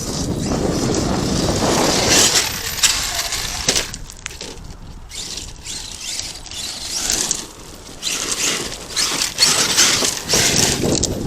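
Arrma Kraton 8S radio-controlled monster truck driving over loose dirt and gravel, with gritty tyre and debris noise. It is loud for the first few seconds, drops back, and is loud again near the end.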